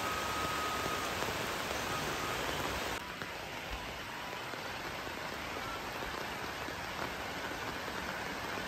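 Steady rain falling, an even hiss that becomes a little quieter about three seconds in.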